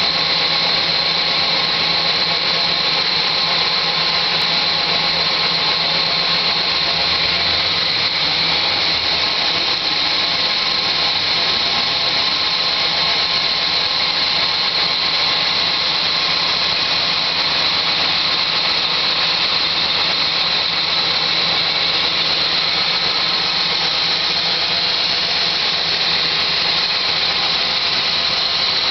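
1966 Plymouth Fury's V8 engine running steadily, with a loud, steady high-pitched squeal over it.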